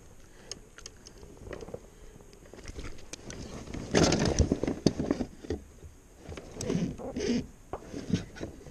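Peacock bass being handled in a plastic kayak: scattered small clicks, then a loud burst of flapping and knocking against the hull about four seconds in, and a second, smaller run of knocks around seven seconds.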